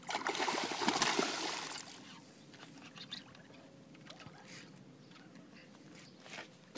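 Carp splashing at the water's surface, a noisy burst for about the first two seconds, followed by faint scattered clicks and knocks.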